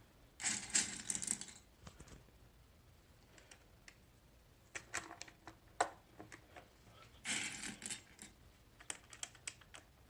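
Plastic keycaps being put back on a Havit HV-KB380L semi-mechanical keyboard and keys pressed: groups of sharp plastic clicks, with two denser clattering stretches about half a second in and around seven seconds in.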